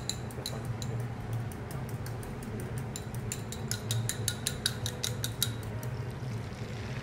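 Metal utensils clicking and tapping, scattered at first and then a quick run of taps through the middle, over a steady low hum.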